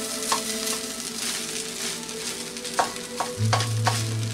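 Beef fried rice sizzling in a hot pan while a wooden spatula stirs and turns it, with several knocks and scrapes of the spatula against the pan, the loudest a little under three seconds in. A low steady hum comes in about three and a half seconds in.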